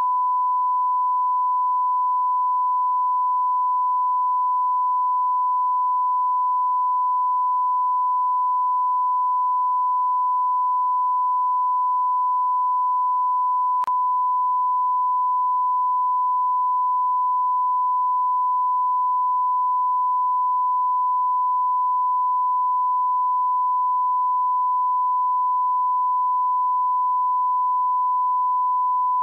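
Continuous 1 kHz sine-wave test tone, the line-up tone that goes with television colour bars: one pure, unchanging pitch at steady loudness. A faint click sounds about halfway through.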